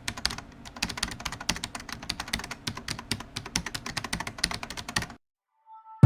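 Rapid, irregular clicking of typing on a keyboard, stopping suddenly about five seconds in. Two short faint tones follow just before the end.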